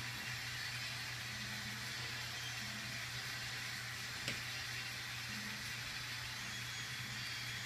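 Steady low hum with an even hiss, the sound of a small machine or electrical hum running in a room, with a single sharp click a little past halfway.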